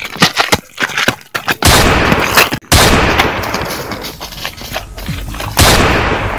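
Gunfire sound effects: a rapid run of shots, then heavier blasts about 1.7 and 5.6 seconds in, each trailing off slowly.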